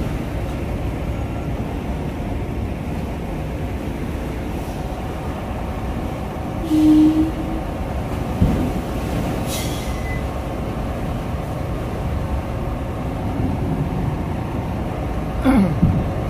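Heavy diesel trucks running at low revs, a steady low rumble. A short low tone comes about seven seconds in, a brief hiss of air a few seconds later, and a short falling tone near the end.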